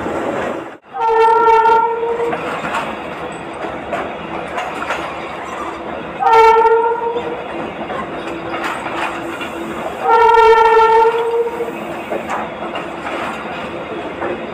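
Train horn blowing three times, each blast about a second long, over the steady rumble and clatter of the train running on the rails.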